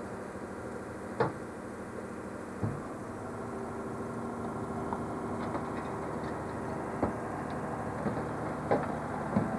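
Refuse lorry's rear compactor running: the truck's engine and hydraulics drive the back plate down to squash rubbish into the body, with a steady hum that sets in about three seconds in and sharp knocks now and then as the load is crushed.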